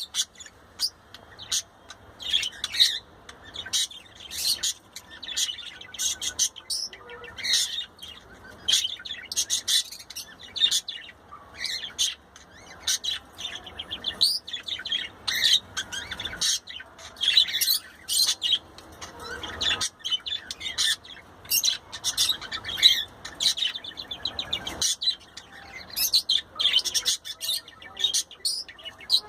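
Budgerigar chattering and warbling, a fast, busy run of high chirps and squeaks with brief pauses.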